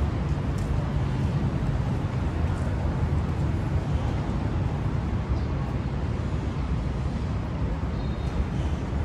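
Steady low rumble of engines running, with no single event standing out.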